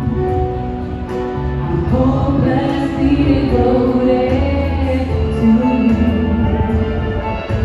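A female singer performing live into a microphone over amplified musical accompaniment from the stage PA, holding long sung notes over a steady bass line.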